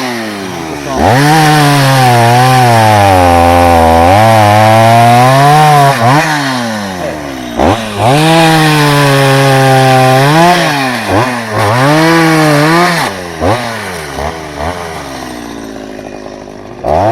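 Small two-stroke chainsaw cutting dry firewood, its engine pitch sagging as the chain bites and climbing again between cuts. After about thirteen seconds it eases off and settles lower toward idle.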